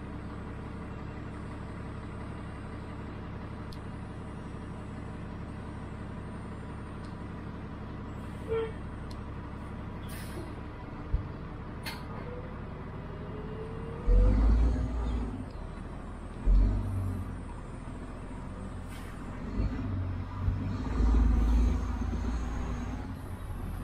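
Inside a city bus: a steady engine idle while it stands, with a short air-brake hiss and clicks around the middle. From about halfway, louder low rumbling and thumps as the bus pulls away and drives on.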